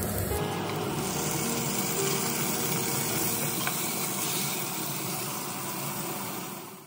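Chopped onions and green peppers frying in hot oil in a cooking pot: a steady sizzle, taking over as background music cuts out just after the start.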